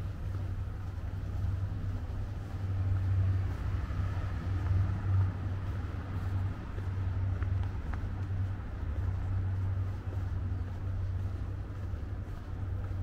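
City street ambience with a steady low rumble.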